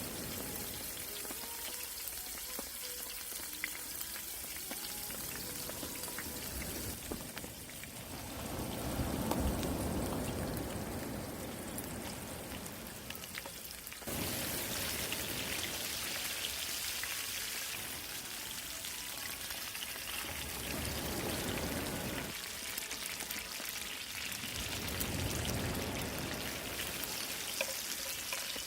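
Eel sizzling as it cooks: a steady hiss of fine crackles that changes abruptly a few times.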